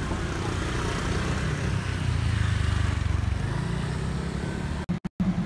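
Diesel railcar engine running with a steady low rumble that swells louder about two seconds in. The sound cuts out briefly near the end.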